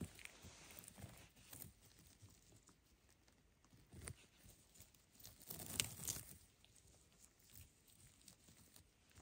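Faint rustling of moss and small snaps as chanterelle mushrooms are picked by hand, with scattered clicks and a louder crackle just before six seconds in.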